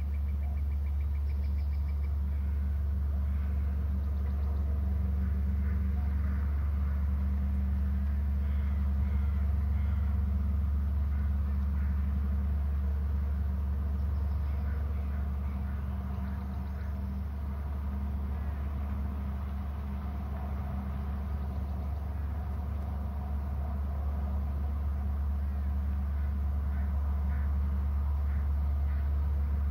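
Steady low hum, with faint, short chirp-like sounds above it now and then.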